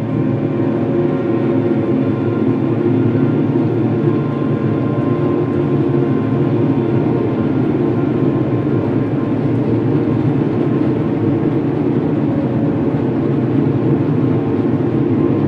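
Dark ambient drone: a steady low rumbling wash with faint held tones above it, unchanging throughout.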